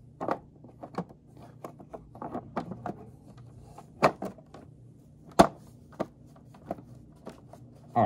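Hard plastic clicking and knocking as the bottom plate is pressed and snapped onto the brush head of an upright bagless vacuum cleaner. The knocks are irregular, with two sharper ones about four and five and a half seconds in.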